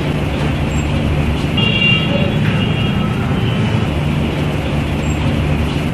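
Steady road traffic noise with a constant low hum underneath, and a brief faint high tone about two seconds in.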